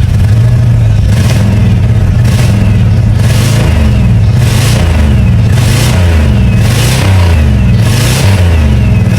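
Pontiac Grand Prix engine being revved over and over, about once a second, each blip of the throttle rising and falling away.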